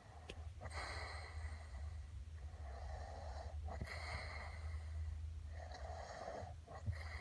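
A sleeping person snoring: noisy breaths come and go about every second or two, over a steady low hum.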